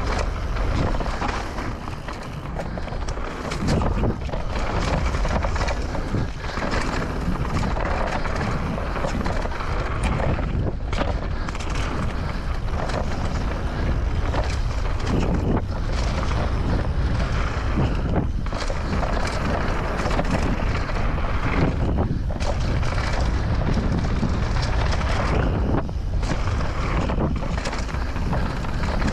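Downhill mountain bike ride on a dirt forest trail: wind rushing over the microphone and knobby tyres rolling over packed dirt and dry leaves, a steady loud rushing that dips briefly now and then.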